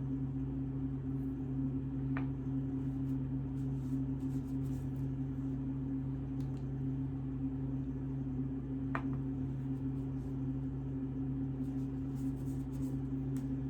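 Steady low hum of room background, with two faint short clicks, about two seconds in and about nine seconds in.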